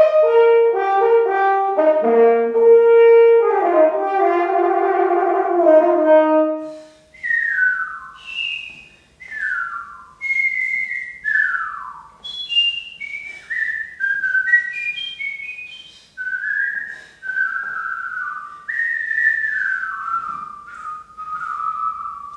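French horn playing a sustained melodic phrase that ends about seven seconds in. A person then whistles a tune of short notes, many sliding downward in pitch.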